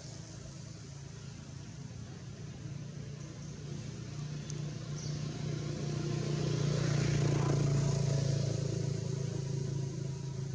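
A motor vehicle's engine with a low steady hum, growing louder to a peak about seven seconds in and then fading as the vehicle passes by.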